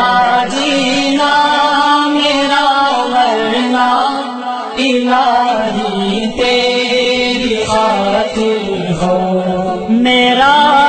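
Nasheed-style devotional singing in a chanting manner, the voice holding long, wavering notes with no clear words between verses.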